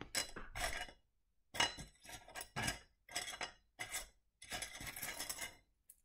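Pieces of rough opal clinking and rattling against each other and the dish as fingers stir through the pile, in five or six short bursts with brief pauses between them.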